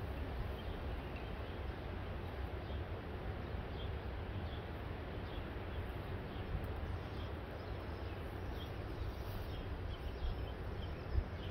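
Outdoor ambience: small birds chirping repeatedly in the background over a steady low rumble.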